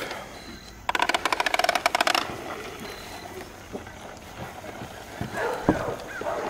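Plastic toy push lawn mower giving a rapid clicking rattle for just over a second as it is pushed over grass.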